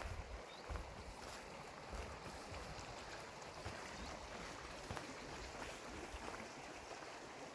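Steady rush of river water flowing, with occasional low buffeting of wind on the microphone.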